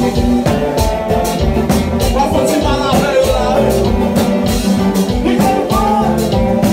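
Haitian konpa band music played live: a steady drum beat and bass under guitar, with a singer's voice coming in a few times.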